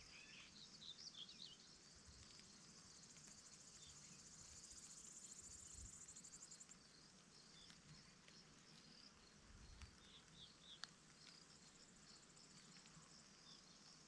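Faint meadow ambience: insects chirring steadily in the grass, with one buzzing trill swelling for about three seconds in the middle and then cutting off suddenly. A small bird chirps briefly near the start and again about ten seconds in.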